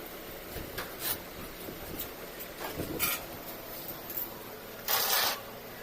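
Plastic side cover of an air cooler being worked open by hand: a few short scrapes and clicks, then a louder half-second scrape near the end.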